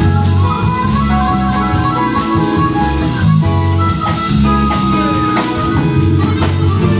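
Live jazz band playing: two harmonicas carry the melody in long held and moving notes over electric bass, electric guitar and drum kit with steady cymbal strokes.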